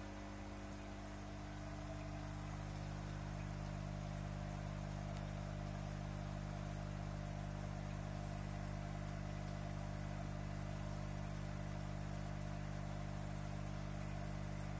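Aquarium pump humming steadily, a low electric hum with a faint hiss, growing a little louder about two seconds in.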